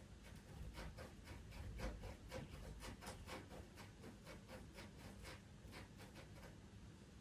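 Pastel pencil scratching lightly over pastel paper in short, quick back-and-forth shading strokes, about three or four a second, with a soft low bump about two seconds in.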